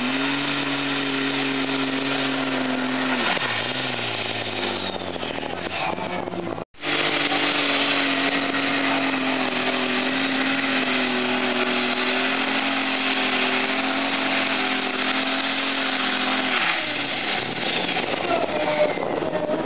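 Pulling tractor's engine running flat out at a steady high pitch, dipping a few seconds in. After a brief dropout in the sound it runs flat out again, then falls off near the end with a high whine sliding down, as the throttle comes off at the end of the pull.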